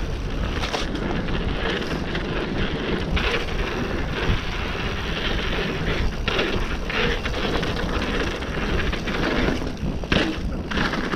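Wind rushing over an action camera's microphone while a mountain bike rolls fast down a dirt trail, its tyres rumbling on the dirt, with several short clunks and rattles from the bike over bumps.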